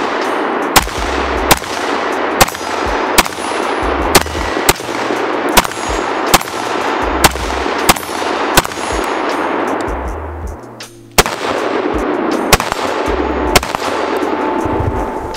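A 5.56 AR-15 pistol fired in steady semi-automatic shots, about one every 0.8 seconds, with a brief pause about two-thirds of the way through. Background music plays under the shots.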